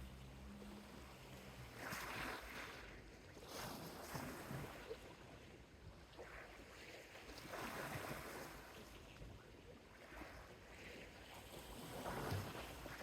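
Small sea waves breaking and washing up a beach, swelling in four surges a few seconds apart, the loudest near the end.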